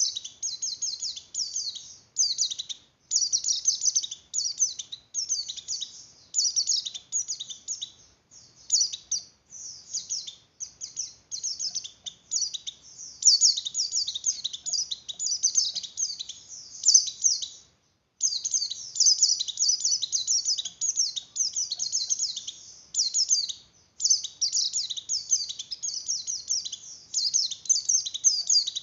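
White-eye (pleci) in breeding condition singing a fast, high twittering song in phrases of a second or two, with short breaks between them.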